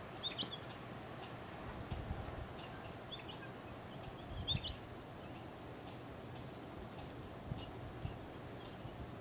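A gray jay's faint, short chirping calls, three of them in the first half, over soft scratching and rustling in the soil from the Arctic ground squirrel digging.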